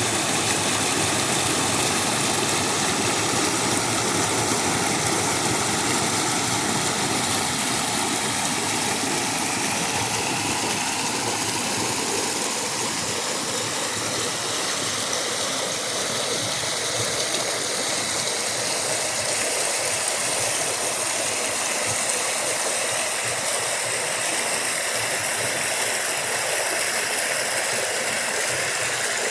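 River water running steadily, a constant rushing noise.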